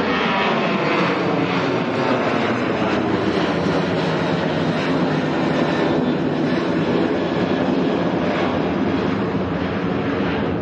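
Boeing 737 freighter's twin turbofan engines at takeoff thrust as it climbs away, a loud, steady jet rumble. Faint tones within it slowly fall in pitch over the first few seconds.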